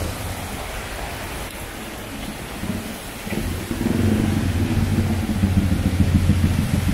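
City street traffic: a large vehicle's engine grows loud close by about halfway through and keeps running with a low, steady drone, over a constant hiss of traffic noise.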